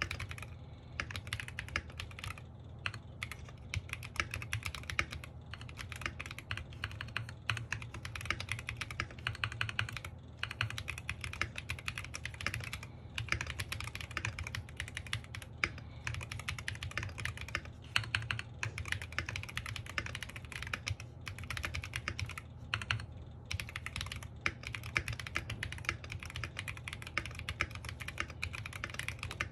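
Steady fast typing on a foamed NJ68 Max mechanical keyboard with Royal Blue switches and pudding keycaps: a continuous stream of key clacks with a few brief pauses between bursts.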